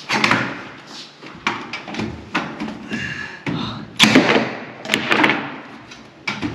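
Staple gun firing staples up into the wooden subfloor to fix radiant-heat tubing clips: a string of irregular sharp bangs, some in quick pairs, each ringing briefly in the open framed building.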